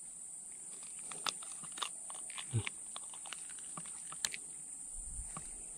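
Small clicks, ticks and one soft thump of hands working a soft-frog lure's hook free from a snakehead's eye, over a steady high-pitched hiss.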